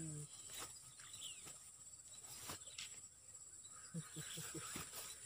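Steady high-pitched drone of insects, with a quick run of soft thumps and rustles about four seconds in as a hooked eel is hauled out of the ditch onto the grass.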